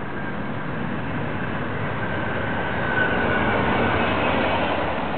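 2005 Honda Civic's engine running, heard from inside the cabin: a steady hum and rush that grows louder about two seconds in and eases near the end.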